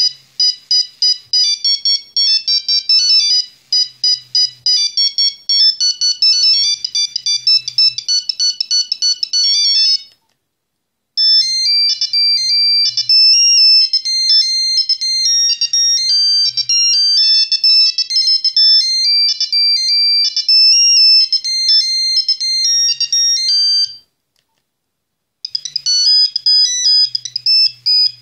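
Nokia 3410 mobile phone playing its beeping monophonic ringtone melodies, high-pitched and fast. Three different tunes follow one another, each starting after a second or so of silence.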